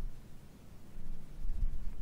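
Wind buffeting the microphone: a gusty low rumble that eases shortly after the start and picks up again by the end.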